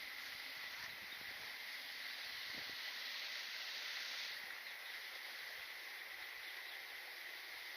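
Steady, high-pitched chirring of insects, unchanging throughout.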